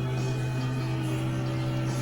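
Background music with sustained, even tones over a constant low hum.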